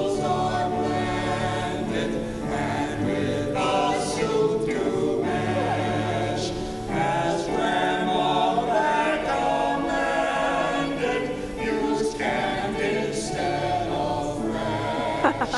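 A choir singing a gospel-style song about hotdish, without a break.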